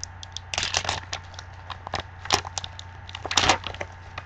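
Foil trading-card pack being torn open by hand, the wrapper crinkling and crackling in short irregular bursts, loudest about two and a third seconds in and again around three and a half seconds in.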